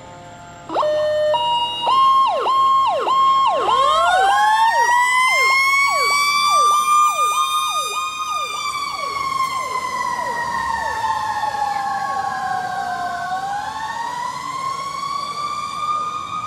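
Fire rescue truck's sirens sounding as it moves off, starting abruptly under a second in. A fast repeating yelp runs under a wailing tone that rises to a peak about eight seconds in, falls away, then climbs again near the end.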